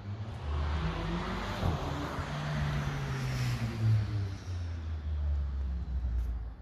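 A vehicle passing by: a rush of engine and road noise swells to its loudest around the middle and then eases off, over a low steady hum.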